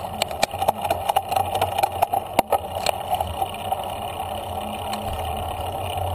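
Bicycle riding noise: a steady rush of wind on the camera and tyres on the path, with a run of irregular sharp clicks and rattles over the first three seconds that then die away, as the path goes from concrete slabs to smoother asphalt.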